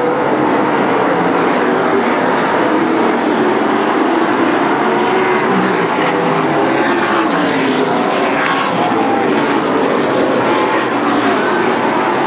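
Pack of outlaw super late model race cars with V8 engines running at racing speed, several engines heard together, their pitch rising and falling as they pass through the turns and down the straights.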